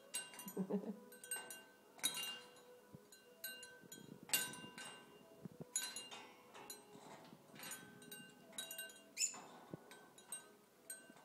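Bell on a hanging parrot toy ringing and clinking irregularly, about once a second, as an umbrella cockatoo shakes and pulls at the toy.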